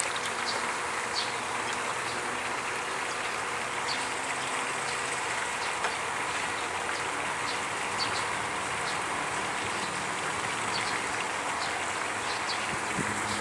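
River water flowing with a steady, even rushing hiss, with faint scattered high ticks over it.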